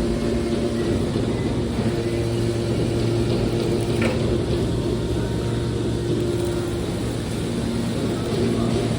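Mobile car baler's engine and hydraulic power unit running steadily with a low hum, with a short sharp knock about four seconds in.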